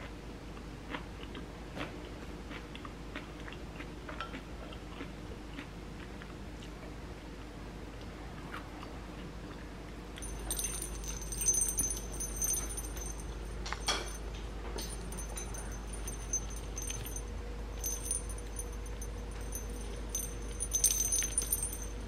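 Faint clicks of a spoon and chopsticks against dishes during a meal. Then, about ten seconds in, a small metal bell or tag jingles on and off as a Pomeranian puppy plays, with a few sharp knocks.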